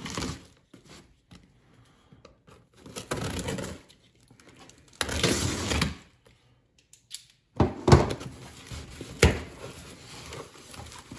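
Utility knife slicing through the packing tape on a cardboard shipping box in three strokes, then the cardboard flaps being pulled open with a few knocks and one sharp click, followed by lighter cardboard rustling.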